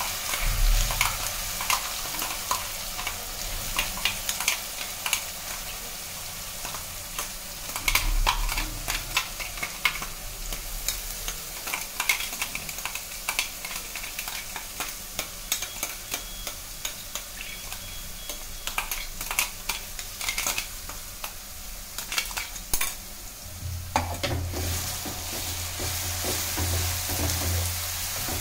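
Ground onion paste sizzling in hot oil and spices in an aluminium kadai as it is tipped in from a pot, with frequent clicks and scrapes of utensils against the metal. From about three-quarters of the way in, a wooden spatula stirs the frying onion.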